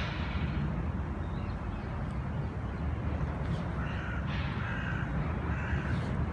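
A crow cawing a few times, mostly in the second half, over a steady low background rumble.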